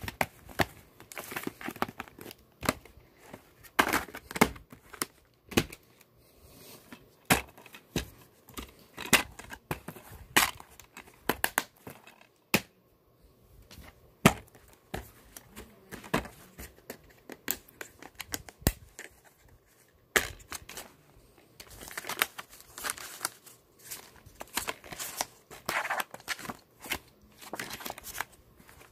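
Hands handling plastic VHS and DVD cases and their paper inserts: irregular clicks and knocks of the plastic cases mixed with paper rustling, with a longer spell of rustling near the end.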